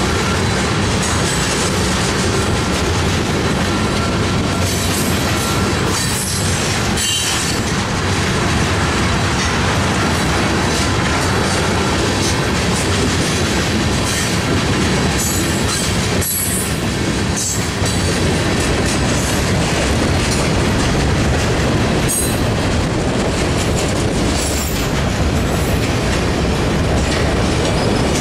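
Freight train cars (tank cars, then autoracks) rolling steadily through a grade crossing, a continuous rumble and clatter of steel wheels on the rails. Brief high squeals and clanks stand out several times.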